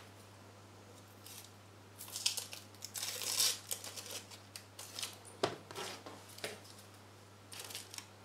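Dry onion skin being peeled and torn off by hand: soft papery crackling and tearing in short bursts, starting about two seconds in.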